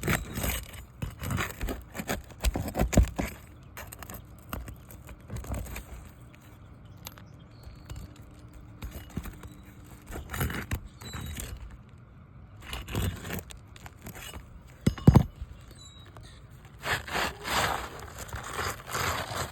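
Asphalt shingles scraping and tearing as a roof snake is worked underneath them to pry out a nail, with irregular knocks and scrapes. The shingle rips, a sign that it is brittle.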